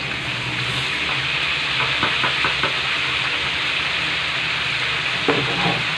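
Chicken deep-frying in hot oil in a metal wok, sizzling steadily, the sizzle growing stronger as runny kremes batter is poured into the oil. A spatula knocks and scrapes against the wok a few times, around the middle and again near the end.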